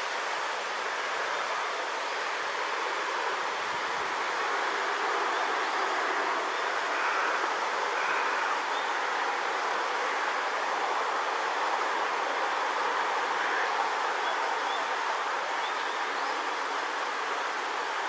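Steady outdoor rushing noise, swelling slightly in the middle and easing off towards the end, with no clear bird calls standing out.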